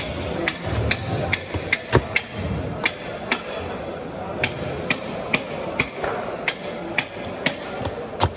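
Large fish knife chopping bluefin tuna on a wooden cutting board: a regular run of sharp knocks, about two a second.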